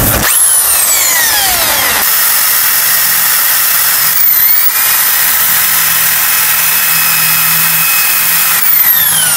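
Electric drill running steadily as it bores a hole through a wardrobe's wooden side panel, its motor whine dipping briefly in pitch about four seconds in.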